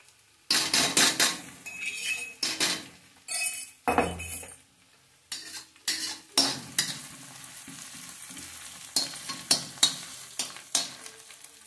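Metal spatula scraping and clinking against a metal kadhai, stirring crushed garlic, ginger and green chilli frying in hot oil for a tadka. Irregular scrapes throughout, with a steady sizzle from about six seconds in as the garlic browns.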